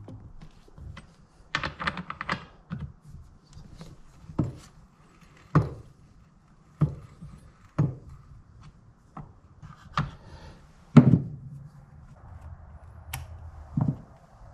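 A series of separate sharp knocks and clicks, roughly one a second, with a quick cluster of them near the start, over a faint low hum.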